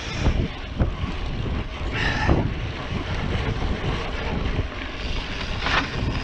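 Wind buffeting the microphone while a mountain bike is ridden along a dirt trail, over a steady rumble of tyres, with frequent short knocks and rattles from the bike going over bumps.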